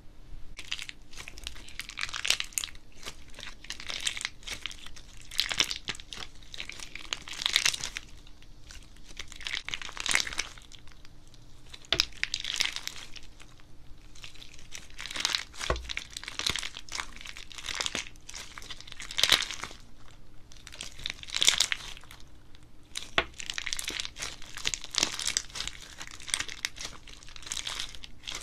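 Clear slime packed with fish-shaped charms being squeezed and stretched by hand: repeated crackling, squishing swells every second or two, with a few sharp pops.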